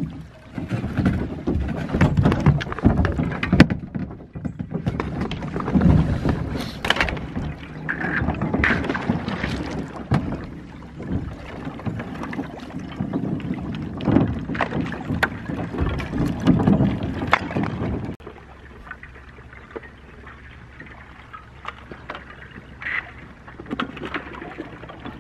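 People wading through icy water, splashing and breaking thin ice, with repeated cracks and knocks of ice sheets and chunks. The sound drops off sharply about three-quarters of the way through, leaving quieter water movement.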